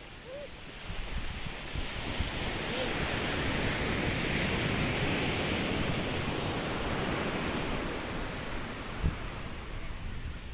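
Sea surf on a beach: the wash of a wave swells over the first few seconds and slowly eases off, with wind rumbling on the microphone throughout.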